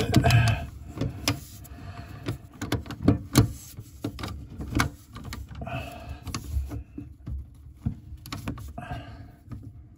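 Basin wrench clicking and knocking against a faucet's mounting nut under a sink while the nut is tightened: a run of irregular sharp metal clicks.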